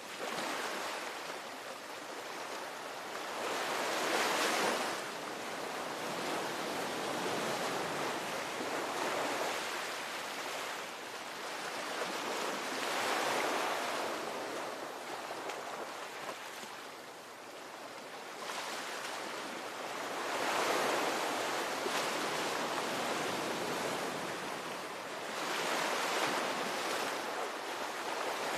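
Ocean waves breaking and washing up, the surf noise swelling and falling back every four to five seconds or so.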